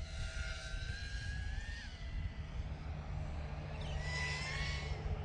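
FPV quadcopter's motors and propellers whining over a low rumble, the pitch sliding up about two seconds in and changing again near the end as the throttle is worked through banking turns.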